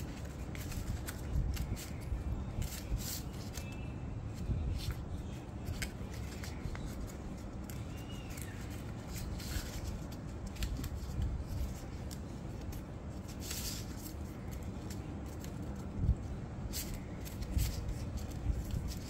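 A sheet of paper being folded and creased by hand: irregular rustles and crisp crackles as the folds are pressed down.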